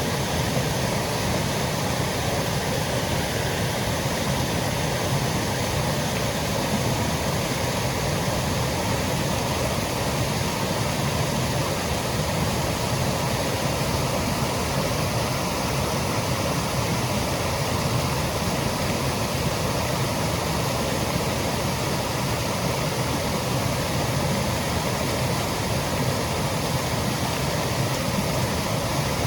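Woodland waterfall, water cascading in a steady, unbroken rush.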